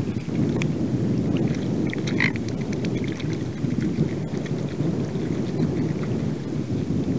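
Wind buffeting the microphone, a steady low rumble, over light splashes from mute swans feeding in the water; a brief higher-pitched call sounds once about two seconds in.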